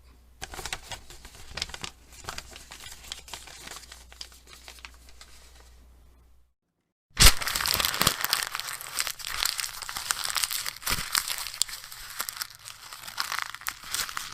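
Paper being crumpled and crinkled by hand, a dense crackling. A softer first take tails off, then the sound cuts to silence about six and a half seconds in. A louder take of crumpling follows, starting with a sharp crack.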